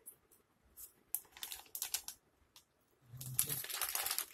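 Close-miked chewing: wet, crackly mouth clicks in two bouts, the second denser and louder near the end.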